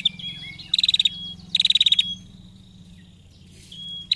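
Female prenjak giving its rapid 'ngetir' call: short bursts of fast, chattering high notes, each about half a second long and coming about a second apart, with brief whistled notes between them.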